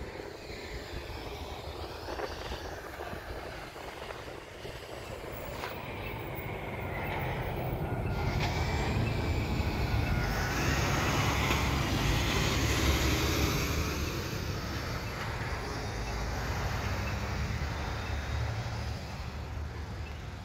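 Road traffic: a passing vehicle's engine and tyre noise builds for several seconds, is loudest a little past the middle, then fades.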